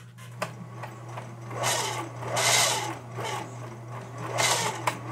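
Singer Merritt 4552 sewing machine running with its top cover off: a steady motor hum under the moving mechanism, which swells louder twice. A slight whine comes from the hand wheel gear, where a plastic gear meets metal and freshly added grease is still working in.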